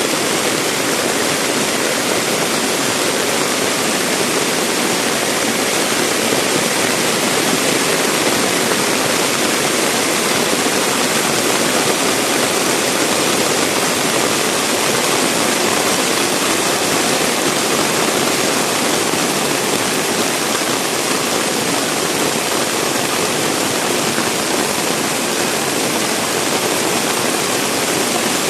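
Heavy rain pouring down steadily, a dense, even hiss with no breaks.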